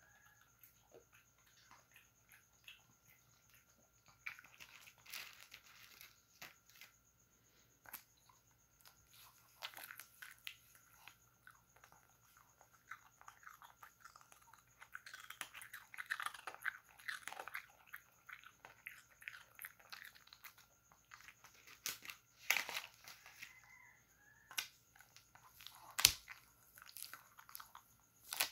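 Shih Tzu x Pekingese dog lapping eggnog: irregular wet licking, smacking and mouth clicks that come in bursts, with one sharp click near the end.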